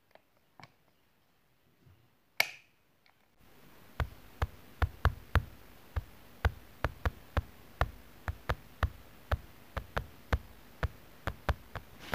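A short sharp noise about two and a half seconds in, then a run of sharp taps and knocks, irregular, about two or three a second, over a faint hiss: a kitten's paws and claws tapping on a tile floor.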